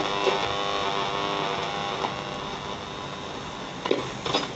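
Shortwave band of a National RX-5135 radio-cassette recorder between stations: hiss and hum of static, with steady whistling tones that fade away over the first couple of seconds. A few short crackles come near the end.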